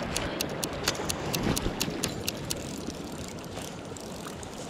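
Orvis Hydro II fly reel clicking as its handle is turned to wind in line, a fast run of even clicks that thins out later.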